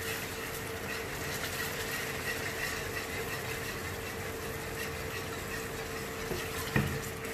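Wire whisk stirring a thickening roux gravy in a non-stick frying pan as hot stock is poured in, the sauce simmering, over a steady mechanical hum. One knock near the end.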